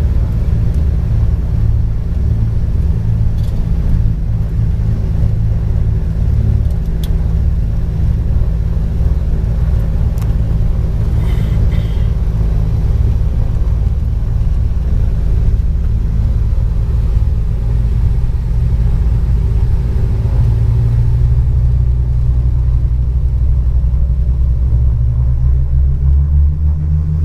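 Twin piston engines of a Cessna 402 running with a steady low drone, heard from inside the cockpit as the plane taxis. The engine note grows stronger over the last several seconds, with power coming up for takeoff.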